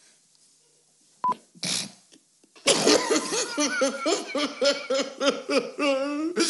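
A man's exaggerated comic sobbing: loud rhythmic wailing pulses, about three a second, start a little under three seconds in and end in a longer drawn-out wail.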